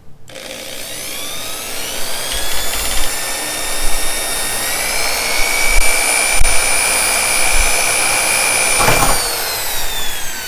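Electric drill boring a hole to enlarge a screw hole: the motor whine climbs as it spins up, holds steady while cutting, then falls away near the end as it winds down.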